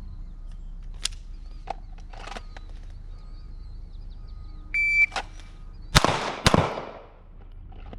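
A shot timer beeps once, and a little over a second later a handgun fires a pair of shots about half a second apart, each echoing briefly.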